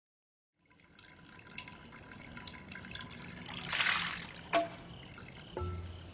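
Trickling water with small clinks. A louder splashing swell comes about four seconds in, then a sharp click, and near the end a couple of short chime-like rings.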